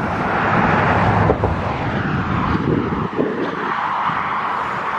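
Motor-vehicle noise: a steady rushing hum with a low rumble underneath, as of traffic passing on a road.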